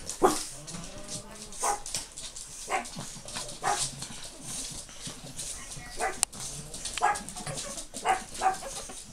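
Pug puppies barking and yipping in short, scattered barks during rough play, about eight in all.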